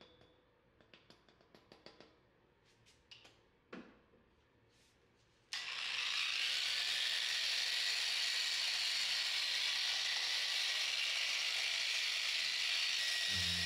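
Scattered small taps and clicks as a bottle of polish is dabbed along a painted bike frame tube. About five and a half seconds in, an electric polisher with a foam pad starts suddenly and runs steadily, buffing the wet-sanded clear coat to take out orange peel.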